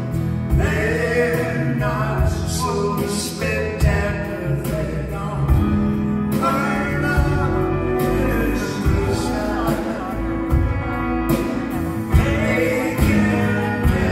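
Live band music: a male lead vocal over strummed acoustic guitars, bass and a steady beat.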